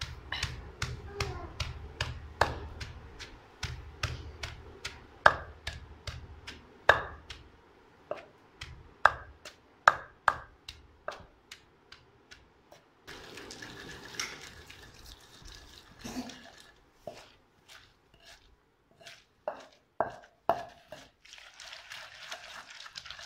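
Wooden pestle pounding fresh coriander leaves in a mortar: a long run of dull knocks, about two a second at first, then sparser and irregular, with a couple of short stretches of hissing grinding between strokes.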